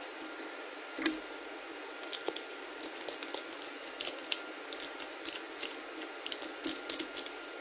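Hand socket ratchet clicking in short quick runs as it turns the nut on a motorcycle turn-signal stalk, starting about a second in.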